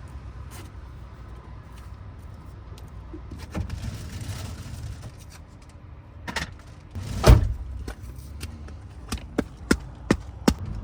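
Knocks and clatter of cooking gear being cleared up and put away inside a vehicle, with one loud thump about seven seconds in and a quick run of sharp clicks and knocks near the end, over a steady low rumble.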